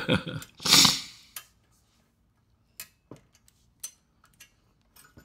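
Quarter-inch inch-pound torque wrench working the cylinder head bolts of a 179cc LCT engine: a handful of scattered, separate metallic clicks and clinks, after a short breathy hiss about a second in.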